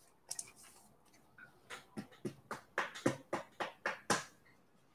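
Panini Mosaic basketball cards being flicked through by hand, one crisp card snap after another: a few at first, then about three a second.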